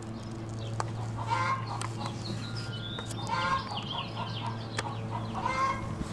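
Chickens clucking in several short bouts, with a steady low hum underneath.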